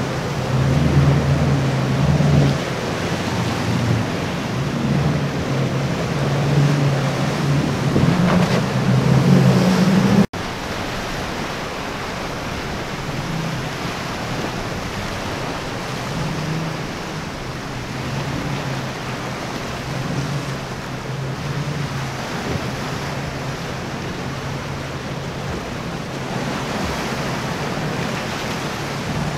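Boat engines droning over the rush of surf and wind on the microphone: first a center-console's twin outboard motors running through rough water, then, after an abrupt cut about ten seconds in, a quieter engine drone from a sportfishing boat plowing through waves.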